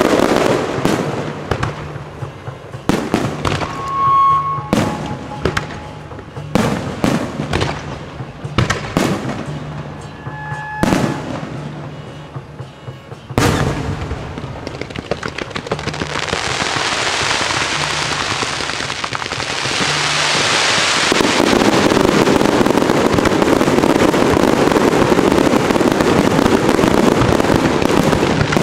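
Aerial fireworks: single shell bursts banging one after another. About halfway through, a big bang opens a dense barrage of bursts and crackle that builds into a continuous loud rush.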